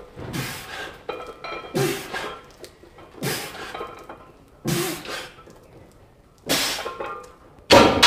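A lifter's forceful, hissing breaths, six of them at about one every second and a half, in time with the reps of a heavy shoulder press. The last, near the end, is the loudest.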